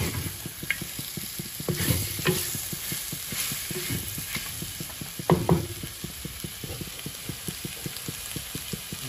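Spatula stirring and scraping mutton and potato pieces around a heavy black kadhai, over a steady sizzle of meat frying in its spice paste before the water goes in. A few louder knocks come about two seconds in and again around five seconds in.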